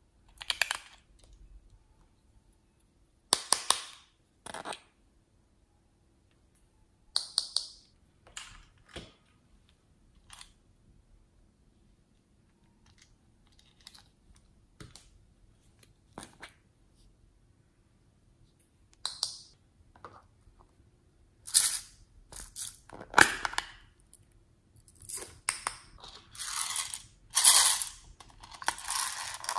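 Small plastic toys and containers handled by hand: scattered clicks, taps and snaps of hard plastic parts and lids, with quiet gaps between. They come thicker and louder over the last several seconds.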